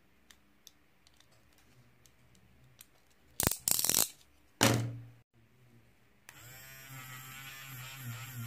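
Faint light clicks, then two loud, brief scuffs about three and a half and four and a half seconds in. About six seconds in, a small battery-powered electric eraser switches on and buzzes steadily, its pitch wavering as it is pressed onto the paper.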